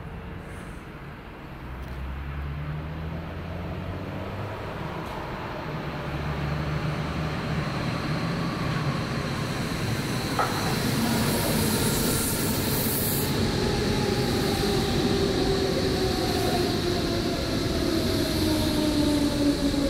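Modernised Berlin S-Bahn class 480 electric multiple unit, fitted with replacement traction control, running into the station. It grows louder as it approaches, and its motor whine falls steadily in pitch as it slows along the platform.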